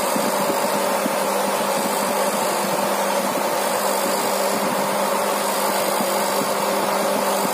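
Honda C70 motorcycle with a 200cc horizontal 'sleep' engine, running steadily at an even speed without revving.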